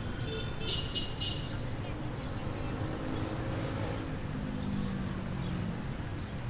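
City street ambience: a steady hum of distant traffic, with a brief high chirping sound about a second in.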